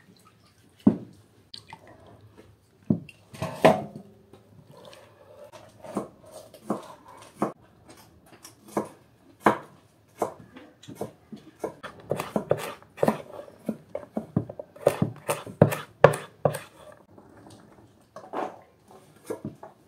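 Kitchen knives chopping carrots and other vegetables on wooden cutting boards: irregular knocks of the blades on the wood, coming closer together about two-thirds of the way through.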